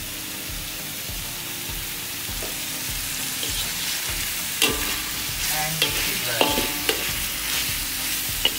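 Chicken pieces sizzling in a large steel wok while a slotted metal spatula stirs and scrapes them through the hot oil. Sharp metal clinks and scrapes of the spatula against the pan come several times from about halfway through.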